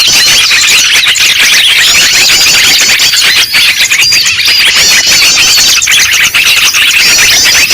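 A dense, loud chorus of many small birds chirping and twittering over one another without a break: a mixed bird-lure track of noisy calls, made to draw small birds in.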